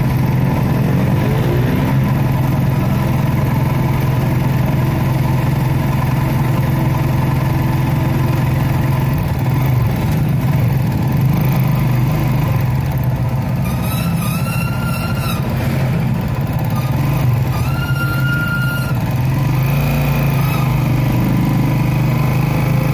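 Motorcycle tricycle's engine running steadily on the move, with road and wind noise. Two short high-pitched tones come about two-thirds of the way through.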